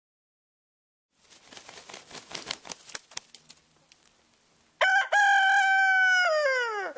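A rooster crowing: a brief opening note, then one long held note that falls in pitch at its end, starting about two-thirds of the way in. Before the crow, a few seconds of scratchy rustling noise.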